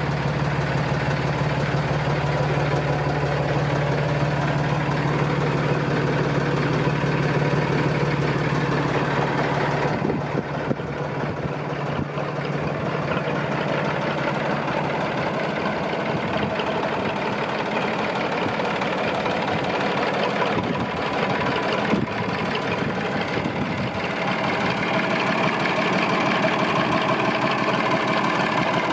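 Massey Ferguson 250 tractor's three-cylinder Perkins diesel idling steadily. For about the first ten seconds it is heard from inside the cab, with a strong low drone. After that it is heard from outside, where the low end falls away and the engine's clatter comes to the fore.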